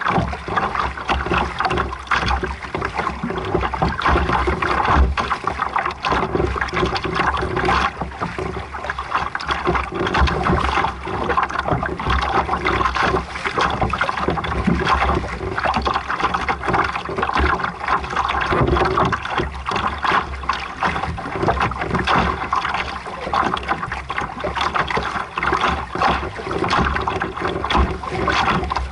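Water rushing and splashing against a sailboat's hull as it moves under way: a continuous, uneven wash with a low rumble beneath.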